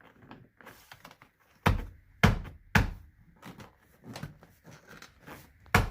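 A series of sharp knocks and thuds on the car's dash trim: three hard ones about half a second apart, then lighter taps and another hard knock near the end.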